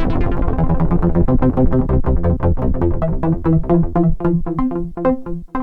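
Ad-vantage 03m monophonic analog synthesizer playing a fast sequenced run of short notes over a bass line. The bright top end closes down early on, like a filter sweeping down, and the notes become shorter and more clipped toward the end.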